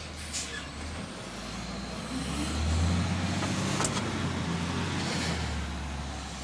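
Garbage truck's diesel engine running, a low rumble that swells and is loudest two to four seconds in, with a sharp click near the middle.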